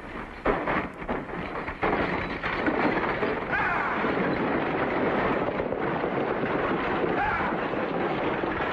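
Stagecoach and horse team galloping in, a steady clatter of hooves and rolling wheels with a few shouts. Two sharp cracks come in the first two seconds.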